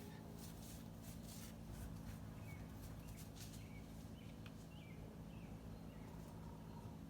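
Quiet outdoor ambience: a steady low hum with a few faint bird chirps in the middle.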